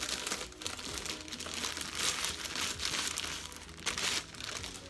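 Bag of pre-stretched braiding hair crinkling and crackling continuously as it is handled and opened.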